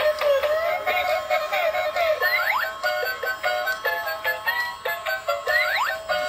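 Tinny electronic tune from a battery-operated light-up walking fish toy's small speaker: a quick synthesized melody with a rising whoop twice.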